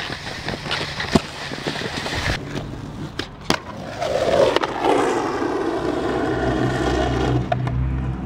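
Board knocks and scrapes: a snowboard on a wooden box with a couple of sharp knocks, then from about four seconds in a skateboard grinding along a concrete curb in a long scrape with a ringing edge. A low steady hum comes in near the end.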